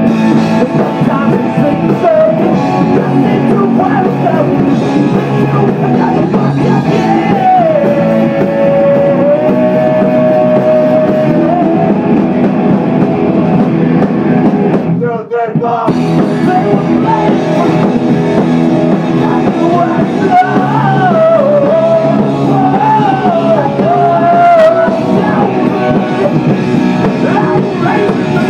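Live rock music played loud: electric guitar with a sung melody over it. The sound drops out for under a second about halfway through.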